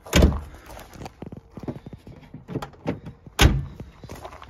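Footsteps and knocks around a steel car-trailer deck: two loud thumps about three seconds apart, with lighter clicks and scuffs between them.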